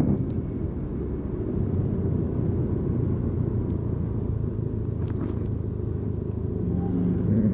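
Motorcycle engine running steadily while riding, a low steady hum with road noise.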